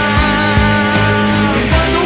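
Rock music in an instrumental passage with no singing: a long held lead note drops to a lower note near the end, over a steady beat.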